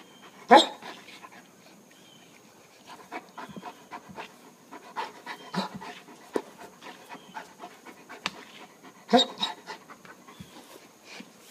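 Large dog panting in short, irregular breaths while it rolls about, with two louder bursts, one about half a second in and one about nine seconds in.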